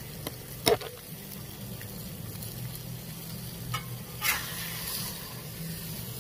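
Spatchcocked chicken sizzling on a Blackstone flat-top griddle, with a sharp metal clank a little under a second in and a shorter scrape of the metal spatula on the griddle plate a little after four seconds.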